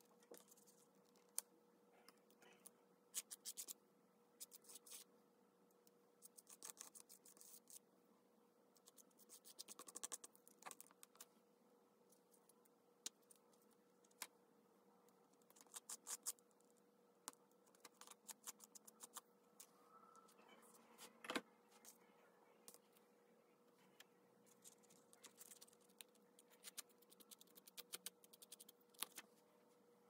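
Faint, scattered clicks, taps and short scratches of hands working with paper and craft tools at a desk, over a faint steady hum.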